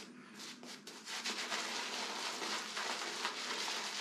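Omega Roma Colosseum boar shaving brush bristles swirling and rubbing through shaving soap lather: a steady scrubbing rustle that grows louder about a second in.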